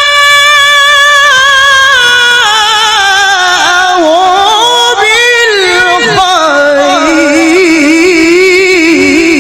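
Male Quran reciter (qari) chanting in melodic tajwid style, holding a long high note and then descending through ornamented, wavering melismatic runs to a lower pitch.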